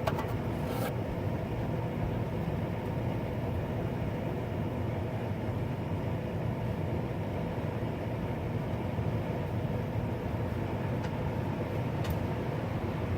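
A squeezed-down drink can made to imitate a sports-car engine: a steady, even buzzing drone that neither rises nor falls, with a couple of faint clicks near the end.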